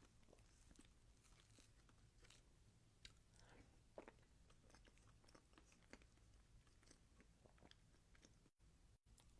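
Faint chewing of cake: soft, irregular mouth clicks and smacks, with one slightly louder click about four seconds in. The sound drops out for an instant twice near the end.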